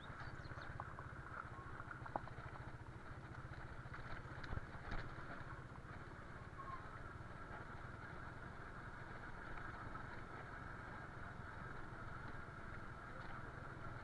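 Small motorcycle engine running steadily at low road speed, with a few light knocks from the bike jolting over the rough track.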